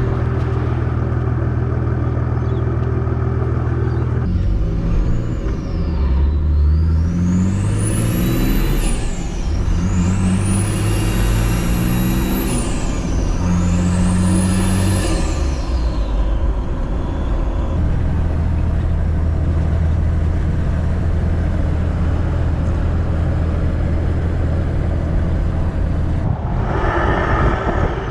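Nissan TD42T turbo-diesel engine pulling hard through the gears, a high turbo whistle rising and falling three times as it accelerates and shifts. It then settles into a steady cruising drone.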